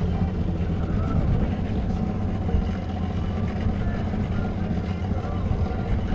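Small boat's outboard motor idling in neutral: a steady low hum.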